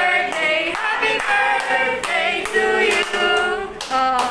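A group of people singing a birthday song together.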